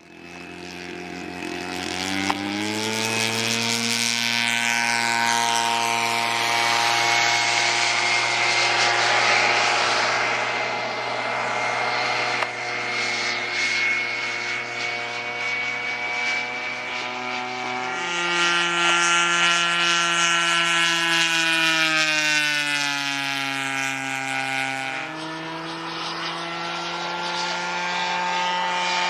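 Desert Aircraft DA50 single-cylinder two-stroke gasoline engine of a giant-scale Top Flite P-51 Mustang model airplane, running in flight and driving its propeller. The sound swells in and steps up in pitch about two seconds in, drops and sags lower around eighteen seconds in, then climbs again near twenty-five seconds.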